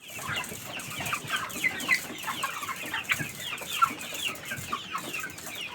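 A flock of chickens in a deep litter poultry house calling, with many short, overlapping high-pitched chirps and clucks.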